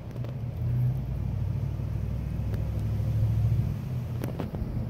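A low, steady engine-like rumble with a hum, lasting about four seconds before it fades, with a few faint clicks near the end.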